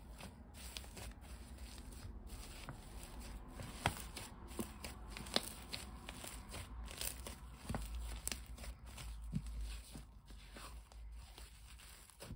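Wet icy slime being squeezed and stretched by hand, giving many small irregular crackles and sizzling pops.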